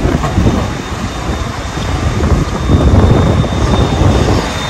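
Tram running past with a loud low rumble that dips and swells again about three seconds in, with wind buffeting the microphone.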